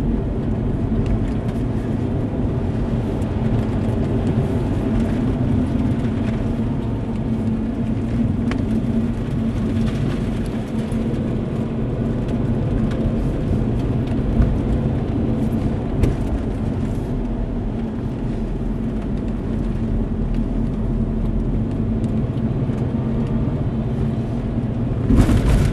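Car driving at moderate speed, heard from inside the cabin: a steady low drone of engine and road noise with a constant hum. A short louder rush of noise comes just before the end.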